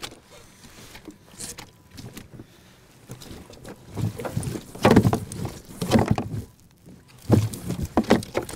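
Handling noise in a plastic fishing kayak as a netted lake trout is worked in the landing net. Small clicks and rustling are followed, from about halfway through, by several loud knocks and thumps against the hull.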